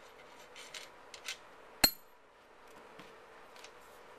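Metal parts at the front of an M1 Garand, the gas cylinder lock and gas cylinder, being unscrewed and handled: faint scrapes and small clicks, with one sharp, ringing metal clink a little under two seconds in.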